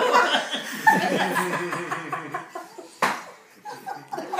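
Several adults laughing and chuckling together, with a short, sharp sound about three seconds in.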